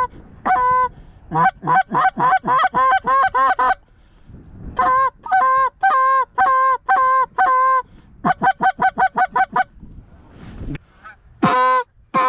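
Geese honking and clucking up close: single honks, then fast runs of clucks about four a second, a short pause, steadier honks about two a second, and another quick run.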